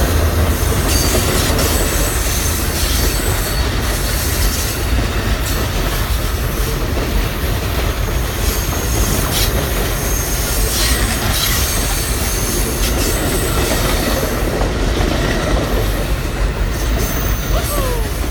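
Amtrak Coast Starlight passenger train rolling past, its wheels clicking over rail joints with faint high wheel squeal. A deep rumble is strongest in the first couple of seconds and eases after that.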